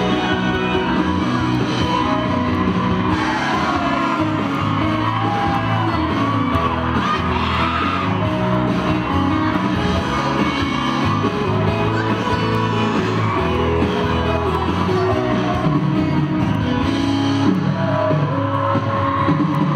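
Dance music with a sung vocal, playing steadily for the couple's routine.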